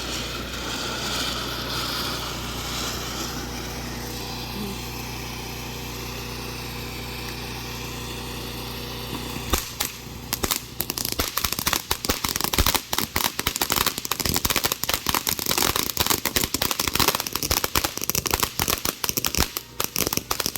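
A steady hiss for about the first half, then a string of firecrackers going off in a rapid, irregular run of sharp pops that lasts to the end.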